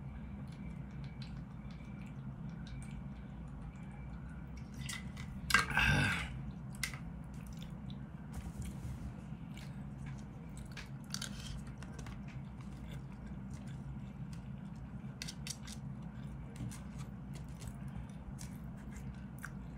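Plastic spoon and fork clicking and scraping in a plastic food container, with chewing, over a steady low background hum. One louder, brief sound stands out about six seconds in.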